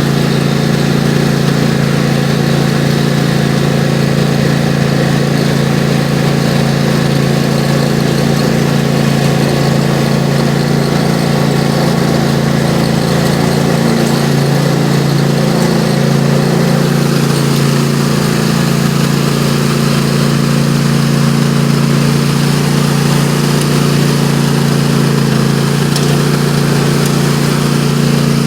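Riding lawn mower's engine running loud and steady.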